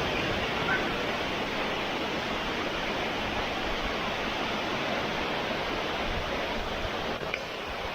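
Waterfall cascade: water falling and rushing steadily, an even, unbroken noise. A brief high chirp about a second in.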